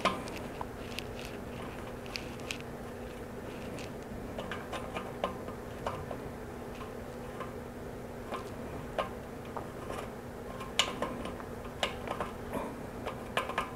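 Faint, irregular small metallic clicks and ticks as a centre-lock brake rotor lockring is threaded onto a bicycle hub by hand, over a steady low hum.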